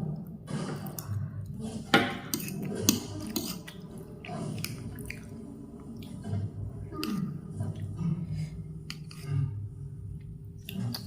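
Close-up eating sounds of noodles in soup: chewing and slurping, with repeated sharp clicks of cutlery against the dish, the loudest about two and three seconds in.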